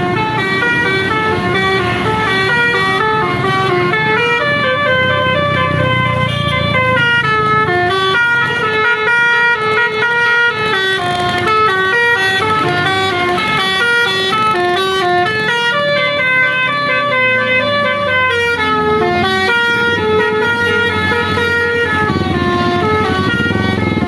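Basuri telolet multi-tone air horn on a tour bus playing a melody, its notes stepping up and down two or three times a second. The bus's engine runs underneath.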